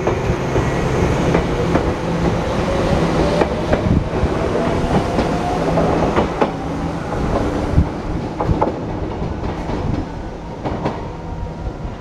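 Shizuoka Railway electric train running close past and pulling away, its wheels clattering over the rail joints and points. A motor whine rises in pitch through the first half as it speeds up.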